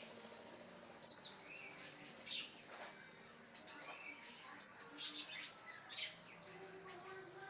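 Lovebird giving short, shrill chirps, each a quick downward sweep. There are single calls early on, then a quicker run of them in the second half, over a steady high hiss.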